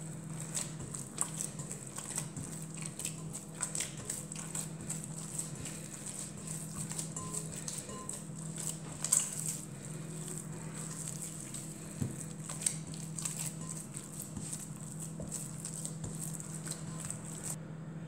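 Hands kneading soft, oiled semolina bread dough in a glass bowl: irregular soft squelches and slaps, with one louder hit about nine seconds in, over a faint steady hum.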